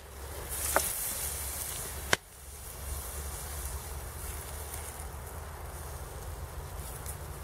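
Pork shashlik sizzling on metal skewers over hot charcoal. Beer poured onto the meat and coals brings a brief louder hiss just after the start. Two sharp metal clicks come as the skewers are turned, about a second and two seconds in.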